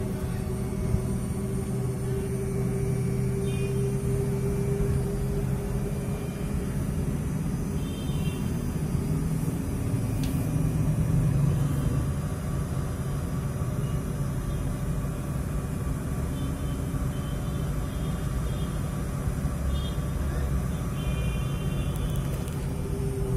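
IFB Senator Aqua SX 8 kg front-loading washing machine running through its rinse: a steady drum and motor hum, with not much vibration.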